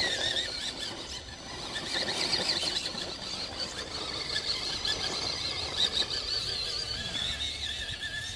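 High-pitched, wavering whine from a Traxxas TRX-4 crawler's Castle Mamba X brushless motor system (3800kv) as it creeps up rock under low throttle. The pitch wobbles as the throttle changes.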